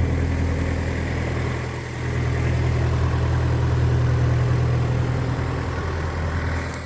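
Skid steer loader engine running steadily, easing off briefly about two seconds in and then picking back up.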